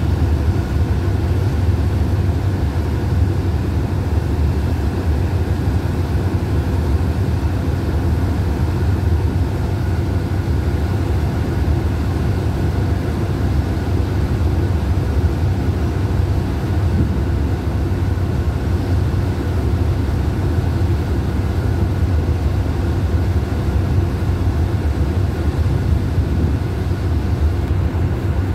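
Alsthom diesel-electric locomotive No. 4130 idling at a standstill, a steady low drone that does not change.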